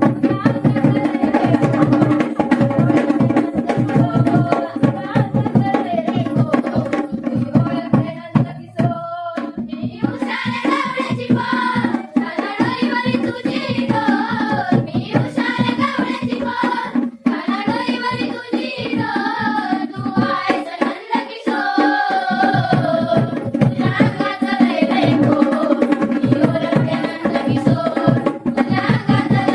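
Konkan folk song: a singer's voice over a rhythmic hand-drum accompaniment, with a brief pause in the singing about a third of the way through.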